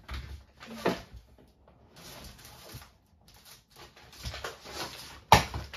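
Handling noises: rustling of papers and small items, with a sharp tap a little under a second in and a louder one near the end.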